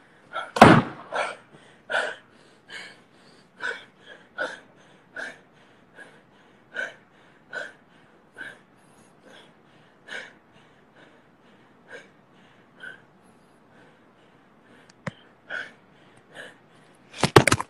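A man laughing in a long run of short, breathy bursts, roughly one to two a second, loudest about a second in and again near the end. A sharp click comes about fifteen seconds in.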